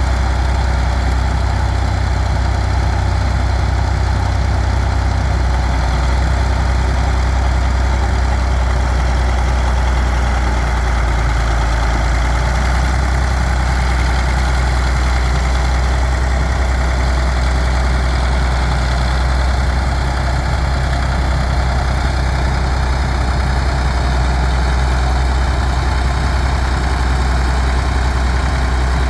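International Harvester TD24 crawler bulldozer's diesel engine running steadily, a deep, even drone with no breaks.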